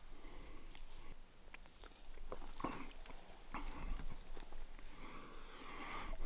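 Quiet handling noises: scattered small clicks and short rustles as a Monster Energy drink can is handled.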